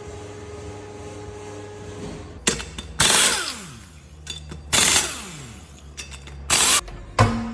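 A power tool run in three short bursts over a steady hum, its motor whining down in pitch after each burst.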